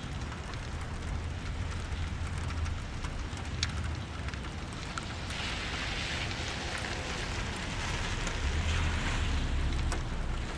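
Steady rain during a thunderstorm, with scattered drop ticks and a low rumble in the first few seconds and again near the end. About halfway through, the hiss of the rain grows heavier.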